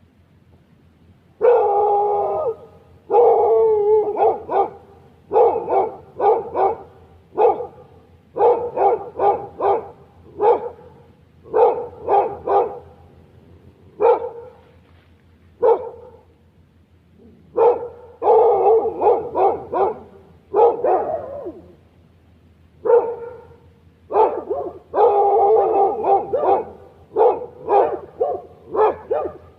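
A dog barking in repeated bouts of quick barks, a few of them drawn out into longer calls about a second long, with short pauses between bouts.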